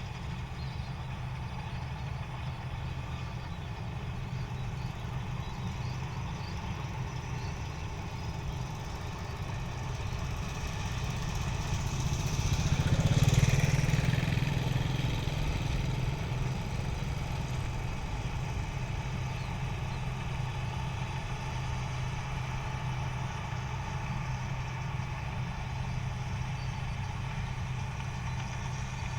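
Engine of an 8060 rice harvesting machine running steadily with a low hum. It grows louder to a peak about thirteen seconds in, then eases back to a steady run.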